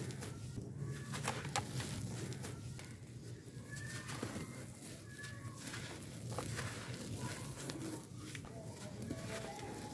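Dry, gritty charcoal dust and crumbs pouring through fingers into a plastic tub while compacted charcoal chunks are crumbled by hand, a crunchy, dusty crackle with scattered small clicks. Bird calls sound a few times in the background, around the middle and near the end.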